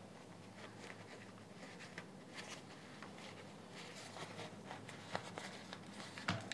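Faint rustling and small plastic clicks as a headphone's faux-leather ear pad is pulled and worked off its plastic ear cup by hand, with a sharper click near the end. A low steady hum runs underneath.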